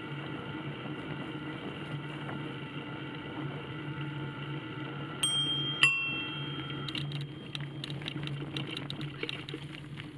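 A bicycle bell rung twice in quick succession about five seconds in, each ring sharp and quickly fading. A steady hum with fixed tones runs underneath, and from about two seconds after the rings comes a run of rapid clicks.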